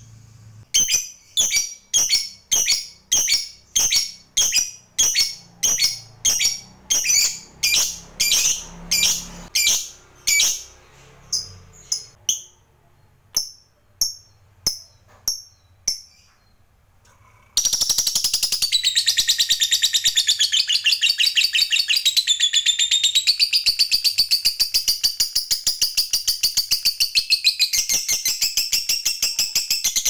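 Lovebird calling: a run of sharp, high chirps about two a second that thin out and stop, then, after a short pause, a long, fast, rattling trill. This is the 'ngekek' song that lovebird keepers prize.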